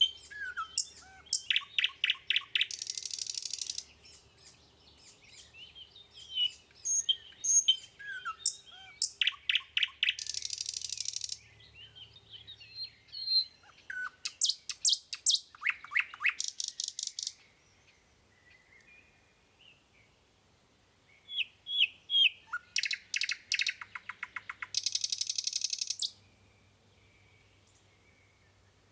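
Small birds chirping and whistling in repeated bouts of quick calls and fast trills, with a pause of a few seconds past the middle.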